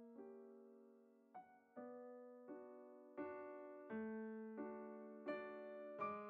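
Background solo piano music: slow, gentle chords struck about every 0.7 seconds, each ringing and fading before the next.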